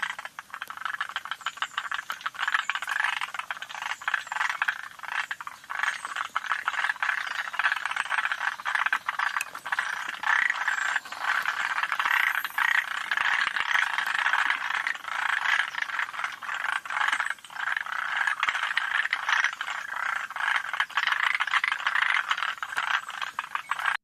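Forest green tree frogs (Moriao tree frogs) calling: a dense, unbroken rattle of quick clicks that goes on throughout.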